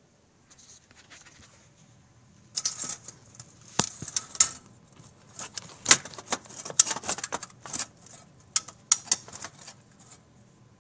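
Handling noise from the camera being set up: fingers tapping, gripping and rubbing on the device, giving a run of irregular clicks, knocks and short scrapes that stop about a second before the end.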